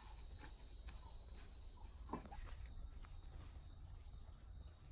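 Forest insects keeping up one steady, high-pitched drone, with a few faint clicks and rustles underneath.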